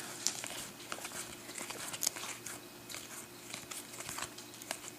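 Basketball trading cards being handled and pulled apart, with a pack wrapper crinkling: a run of small irregular crackles and clicks.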